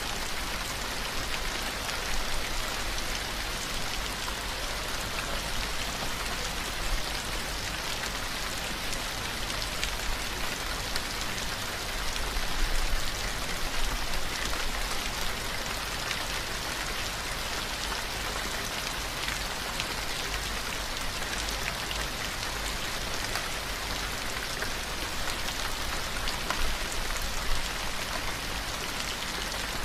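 Steady rain falling on a surface: an even hiss with scattered drop ticks and a low rumble underneath, unchanging throughout.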